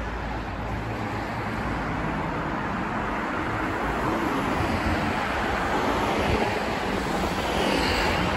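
Road traffic noise: a steady rush of passing vehicles that grows gradually louder.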